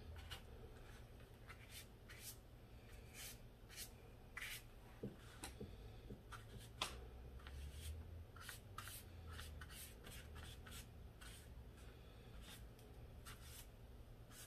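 Faint, scattered light scratches and small taps, irregular and a few per second, over quiet room tone with a low hum.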